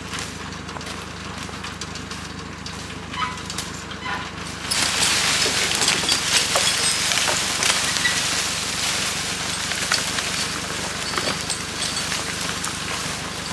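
International 414 tractor engine running steadily. About five seconds in, a log starts dragging through dry leaves and brush as the Farmi winch pulls it out, a loud crackling rush with scattered snaps.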